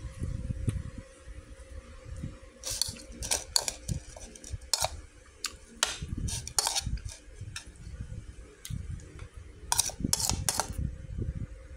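Metal spoon scraping and clinking against a rice bowl while mixing rice. It comes as a string of short scrapes, bunched about three seconds in, again around six seconds, and once more around ten seconds.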